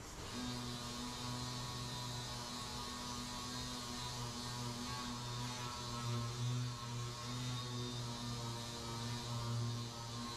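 Dual-action orbital sander running on a car's quarter panel, sanding body filler and primer. It makes a steady hum with a hissing rasp on top, and the loudness wavers as the sander is pressed and moved over the panel.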